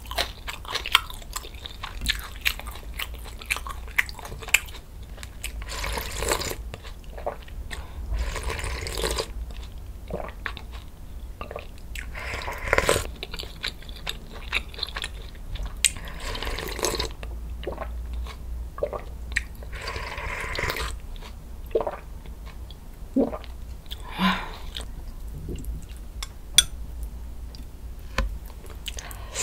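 Close-miked eating sounds: crisp crunching and wet chewing of fresh cabbage kimchi, with several longer slurps of bone broth spaced a few seconds apart.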